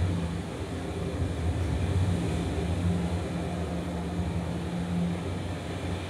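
A steady low rumbling drone from the installation's ambient soundscape, with a deep hum that is strongest at the start and a slightly higher hum held from about two to five seconds in.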